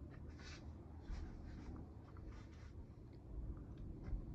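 Faint scraping and small clicks of hand tools and fingers working on a chainsaw during disassembly, in short scattered bits.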